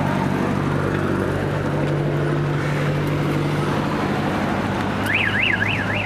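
Street traffic with a steady engine running close by. From about five seconds in, a fast warbling siren tone sweeps up and down about four times a second.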